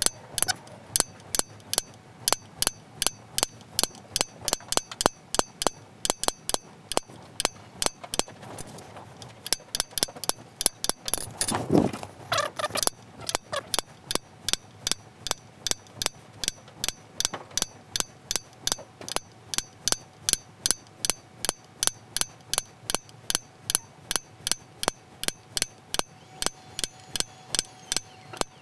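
Small hammer tapping a steel decorating punch into the rim of a wooden bowl, sharp metallic taps at about three a second, each tap stamping one small half-moon mark. The taps stop for a moment about eight seconds in, and a louder, longer handling noise comes around twelve seconds in before the tapping resumes.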